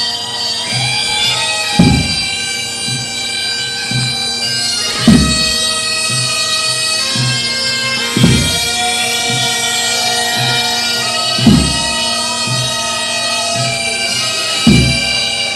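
Highland bagpipes playing a tune over their steady drones. A drum is struck hard about every three seconds, with softer beats in between.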